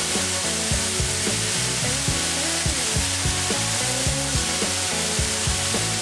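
Snails sizzling in their shells on hot embers, a steady hiss, under background music with a steady beat.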